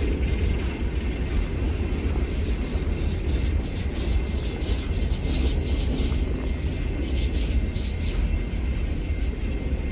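Freight train of coal gondola cars rolling past: a steady low rumble of wheels on rail, with faint short wheel squeals and occasional clicks.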